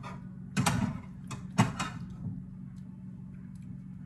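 Brief clatter of kitchen utensils against pots and pans: a short scrape a little over half a second in and a sharp clink about a second and a half in, with a few fainter knocks, over a steady low hum.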